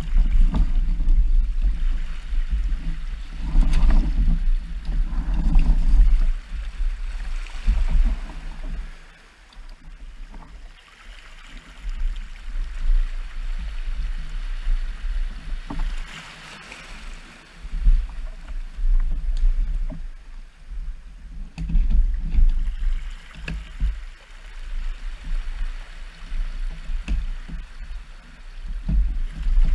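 Water lapping and splashing around a fishing kayak, with soft rushes of water every few seconds over an unsteady low rumble, and scattered small knocks.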